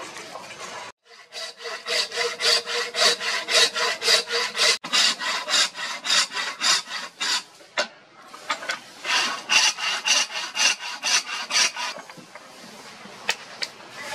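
Hand saw cutting a slot into a hardwood knife-handle block clamped in a vise, in quick, even back-and-forth strokes about three a second. The sawing breaks off briefly about 8 seconds in, resumes, then stops a couple of seconds before the end, leaving only a few light clicks.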